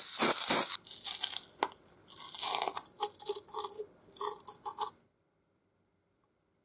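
A few quick scraping strokes, then crinkling and tearing of paper gasket material as it is pressed and torn around the threaded neck of the oiler. The sound stops abruptly about five seconds in.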